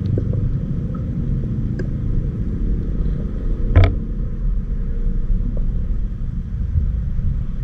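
Steady low underwater rumble picked up by a submerged camera, with one sharp click a little before the middle.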